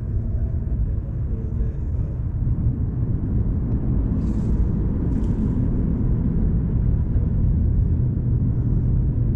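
A steady low rumble with no distinct events, and two brief faint hisses about halfway through.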